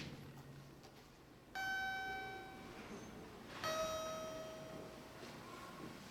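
Two-tone 'ding-dong' chime from a station public-address system: a higher note and then a lower note, each ringing and fading over about a second and a half.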